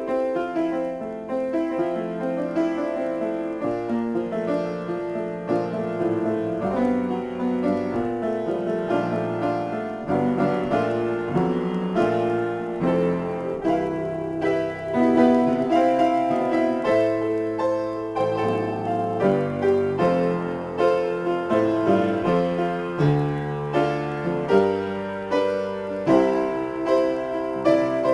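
Upright piano played solo, an improvised mix of chords and melody. In the second half it settles into a steady pulse of accented chords.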